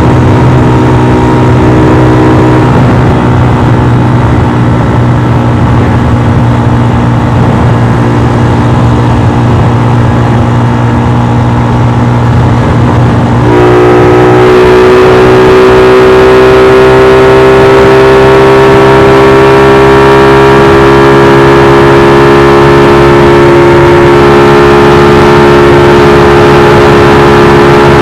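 Modified Modenas Kriss 110 single-cylinder four-stroke engine with an aftermarket Apido exhaust running hard at full throttle. About halfway through the revs jump suddenly and then keep climbing slowly. This is typical of the clutch slipping, which is likened to a VTEC changeover.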